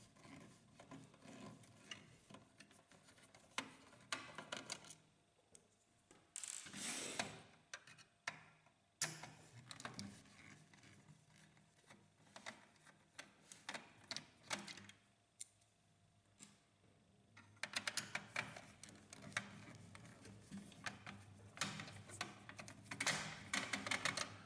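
Screwdriver turning out small screws from the laser scanner unit's mount in a laser printer's metal chassis: faint scattered clicks and scrapes, with a denser run of rapid ticking over the last several seconds.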